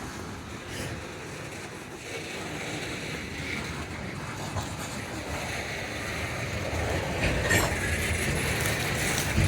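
Loaded coal train's diesel locomotives rumbling, growing gradually louder, with a couple of sharp knocks near the end.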